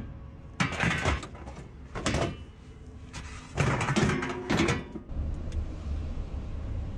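Folding chairs being handled, knocking and clattering in three bursts over the first five seconds. A steady low hum starts about five seconds in.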